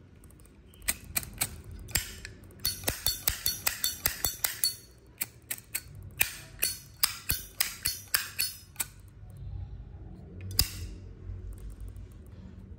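Brass-cased Zippo lighter being clicked open and shut again and again: a quick series of sharp metallic clacks from the hinged lid, with one more clack near the end.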